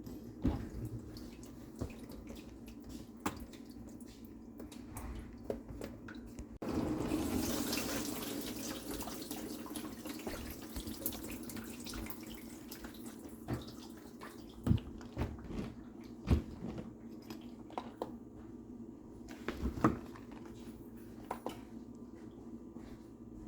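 Dishwasher humming with scattered clicks, then water suddenly rushing in about seven seconds in and running on, slowly easing off, with occasional knocks.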